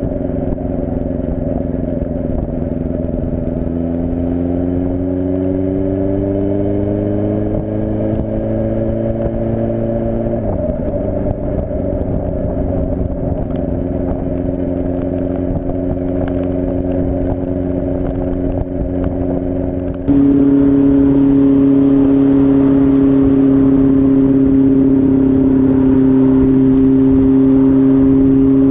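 Honda CBR600F3's inline-four engine running at highway speed, heard through a seat-mounted action camera's microphone. Its pitch climbs steadily for several seconds, drops sharply about ten seconds in, then holds steady. About twenty seconds in the sound jumps louder and fuller as the audio switches to the other camera.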